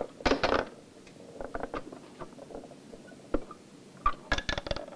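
Model of Zhang Heng's Chinese seismoscope being set off: metal balls knocked from the dragons' mouths clinking and rattling into the frogs beneath. A run of clicks and clinks, loudest at the start and again near the end, with lighter ticks between.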